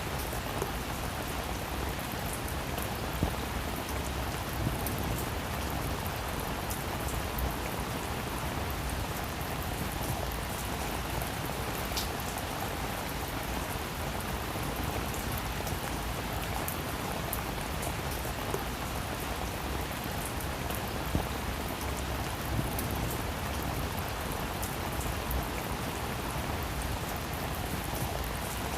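Heavy rain falling steadily, a dense even hiss with the sharp patter of individual drops striking a surface.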